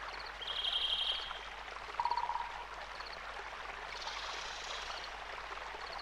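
Small birds singing over a steady rushing like a stream: a short high trill, a lower note, and faint high chirps here and there.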